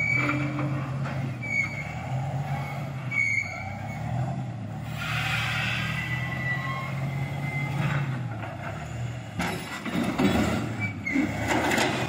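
Diesel engine of a wheel loader with a log grapple running steadily as it drives up carrying a log, getting louder and rougher near the end. A few short high squeaks sound in the first few seconds.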